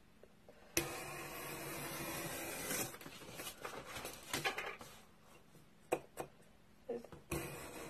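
X-Acto craft knife cutting through foam board: a click as the blade goes in, one long scratchy stroke for about two seconds, then shorter scrapes and light taps.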